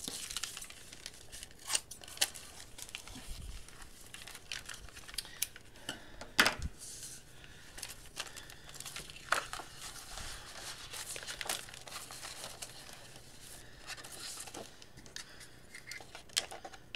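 Sheets of wax paper and cardstock rustling and crinkling as they are handled, with several sharp clicks scattered through, the loudest about six seconds in.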